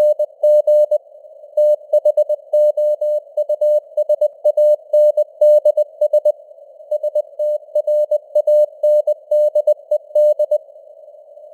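Morse code (CW) sent at 20 words per minute as a single mid-pitched tone keyed in dots and dashes, over a narrow band of simulated radio hiss. Short pauses between words come about one and six seconds in, and the keying stops about ten and a half seconds in.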